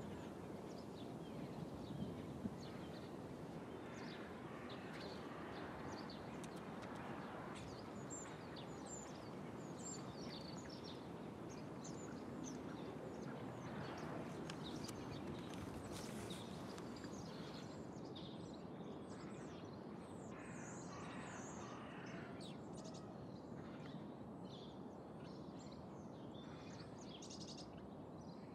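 Faint outdoor ambience: a steady background hiss with scattered short bird chirps throughout.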